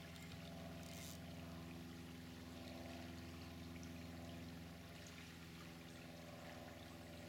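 Steady rushing of river water with a low steady hum underneath, and a brief hiss about a second in.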